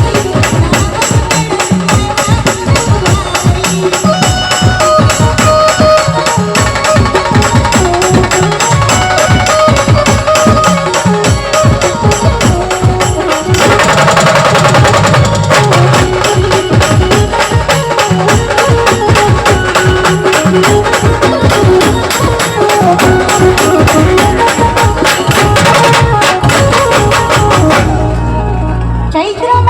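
Brass band music driven by fast, dense drum and percussion beats under a melody line. Near the end the beat drops out, leaving a held low note.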